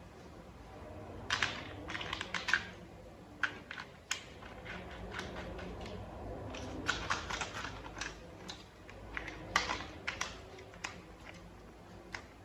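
Small hard plastic toy parts clicking and tapping as they are handled and fitted together: irregular sharp clicks, some in quick clusters.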